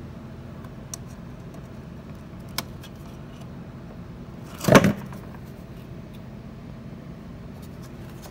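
Light metallic clicks, then a brief, loud metallic clatter a little before the middle, over a steady low hum.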